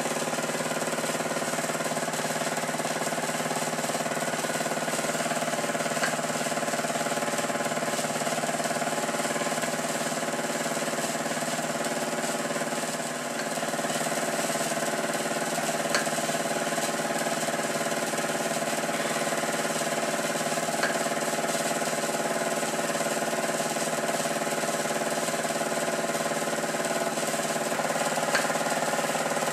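Cheddar Puffin model steam engine running steadily under steam from its gas-fired vertical boiler, an even mechanical chuff and hiss, with a few brief sharp ticks.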